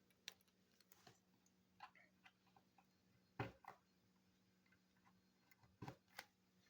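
Scattered quiet clicks and taps of speaker cables being handled and fitted into an amplifier module's terminals. The sharpest comes about three and a half seconds in, and a close pair comes near six seconds.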